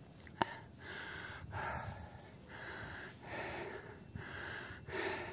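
Heavy, rhythmic panting of a man out of breath from climbing a steep sand dune, with in- and out-breaths about one every second. A single sharp click comes about half a second in.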